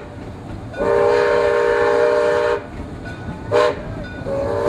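Steam locomotive's chime whistle blowing several notes at once: a long blast, a short toot, then another long blast starting near the end. Together with the long blast just before, this is the long-long-short-long grade-crossing signal.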